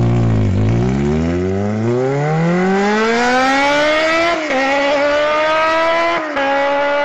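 Engine revving up, its pitch climbing steadily for about four seconds, then holding high with a couple of brief dips before cutting off abruptly.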